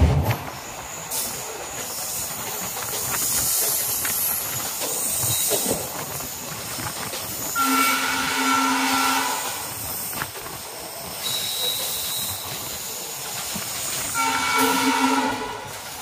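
Express train running at speed, heard from an open coach door: steady rush of wind and wheel noise. The locomotive horn sounds twice, a blast of under two seconds about halfway through and a shorter one near the end.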